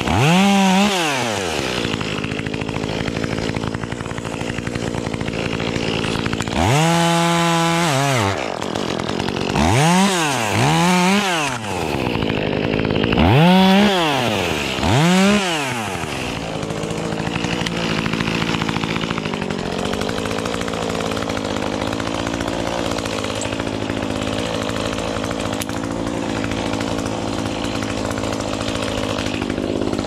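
Two-stroke chainsaw revved up and back down about six times in quick blips, one rev held for about a second. It then settles into a steady idle for the second half.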